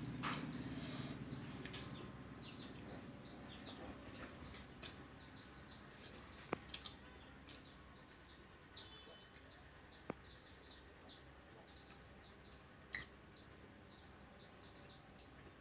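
Faint chirping of small birds in the background: many short, high chirps in quick succession throughout, with a few sharp faint clicks.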